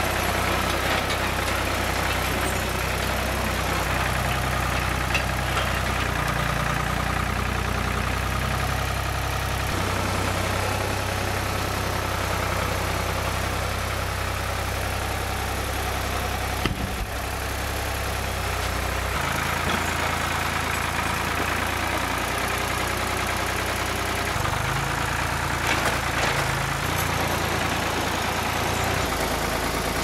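Ford farm tractor engine running at low to moderate speed, its pitch stepping up and down several times as the tractor works its front loader and moves logs. There is a short break about seventeen seconds in.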